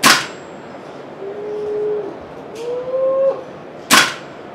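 Two single shots from a VFC-made Umarex G28 gas blowback airsoft rifle, each a sharp crack with the bolt cycling back, one at the very start and another about four seconds later.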